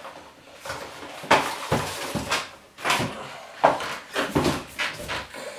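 A string of sharp clicks and knocks, about seven spread over a few seconds, from a plastic LED-fixture diffuser cover being picked up and handled.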